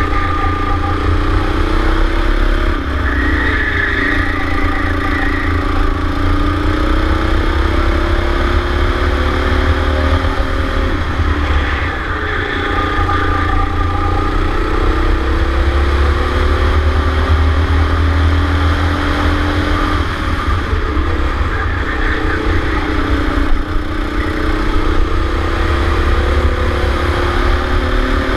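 Go-kart engine heard onboard at racing speed, its pitch climbing steadily along the straights and dropping sharply as the kart slows for corners, about three times over the lap section.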